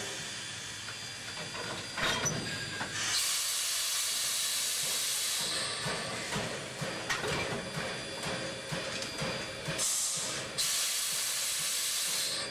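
Aberdeen & Rockfish #40, a 2-6-2 steam locomotive, venting steam in two long hissing bursts from around its cylinders, about three seconds in and again near the end, with scattered light clanks in between.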